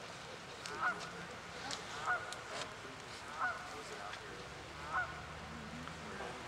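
An animal calling four times, one short call about every second and a half.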